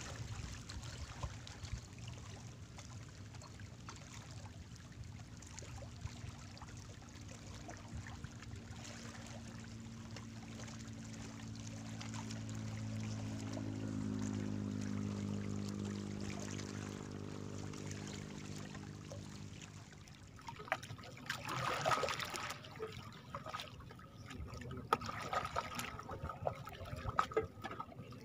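A boat's engine hums steadily out on the water, swelling and then fading away. After a break, small waves lap and slosh against the rocks with irregular splashes.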